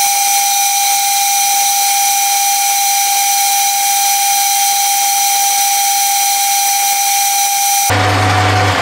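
Metal lathe running, turning a forged steel crankshaft between centres: a loud steady whine over a hiss. About eight seconds in the sound changes suddenly to a low hum as the lathe is stopped.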